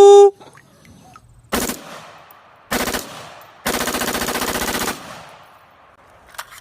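Toy assault rifle's machine-gun sound effect: two short bursts of fire, then a longer rapid burst lasting about a second.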